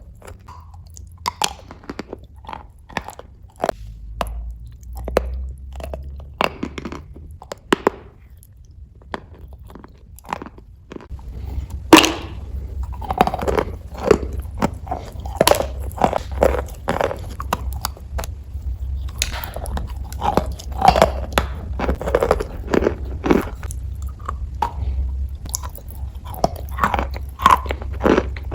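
Chalk being bitten and chewed close to the microphone, with irregular crisp crunches. The crunching grows busier and louder about halfway through.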